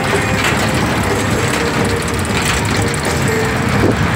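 Cars of a small funfair mini roller coaster rattling and rumbling along the track, with a few knocks.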